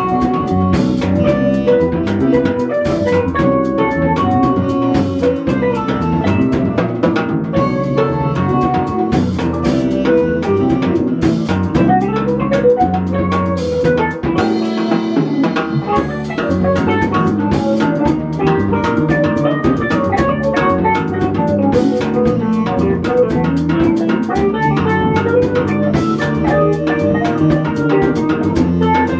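Live instrumental band playing: a drum kit keeps the beat under electric guitar, bass and saxophone.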